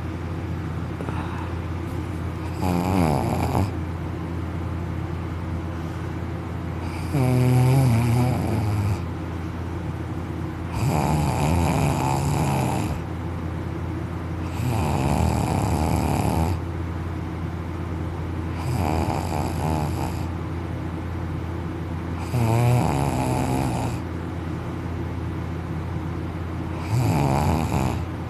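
A young man snoring loudly in deep sleep, open-mouthed and on his back, with his soft palate and uvula vibrating. Seven long, rattling snores come about every four seconds.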